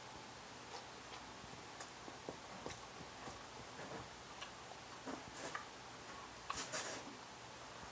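Scattered soft clicks and smacks of someone eating ice cream, with a short louder noise about six and a half seconds in.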